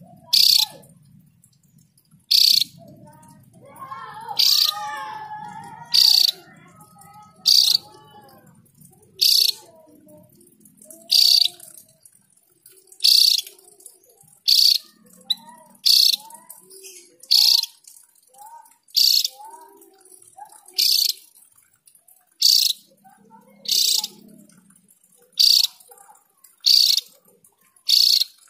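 Caged Javan grey-throated white-eye (opior jawa) calling: a sharp, very high, short note repeated about every second and a half, with soft twittering notes underneath.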